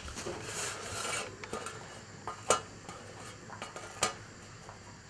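Metal baking tray being pulled out on an oven rack, a scraping slide in the first second, then a few sharp metallic clicks and taps as slices of oven-drying bread are turned over on it.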